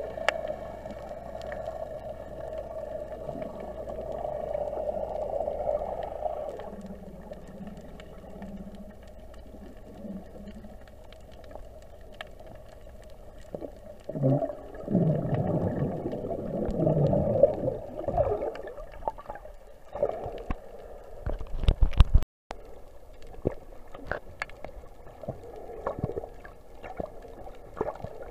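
Muffled water sound picked up by a camera held underwater: a steady dull hum, then a spell of louder gurgling and sloshing a little past the middle, with scattered clicks and knocks.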